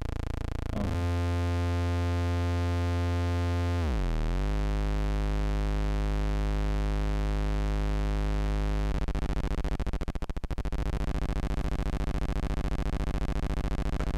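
Harsh square-wave drone from a Lunetta logic-chip synthesizer, its oscillators cross-modulating one another (VCO4 into VCO3, VCO3 into VCO2). The buzz shifts as the oscillator knobs are turned, swoops down and back up about four seconds in, and from about nine seconds breaks into a rapid stuttering buzz.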